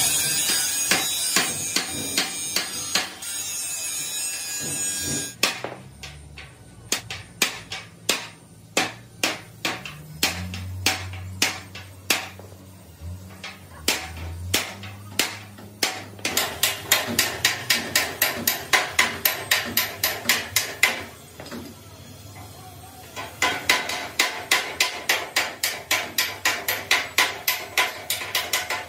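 Hand hammer beating the bent steel frame of a damaged excavator cabin. After a steady hiss in the first five seconds, come scattered blows, then two fast runs of about four strikes a second.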